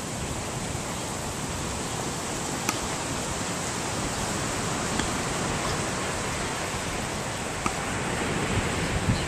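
Steady wash of ocean surf mixed with wind, with a few faint, brief clicks.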